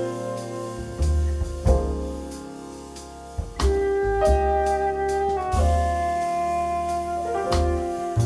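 Jazz combo playing an instrumental intro: flute holding long notes over piano chords, bass and light drums with cymbal strokes.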